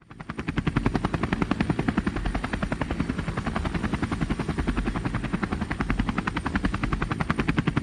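Propeller engine sound effect: a steady drone made of rapid, even pulses. It fades in over about the first second.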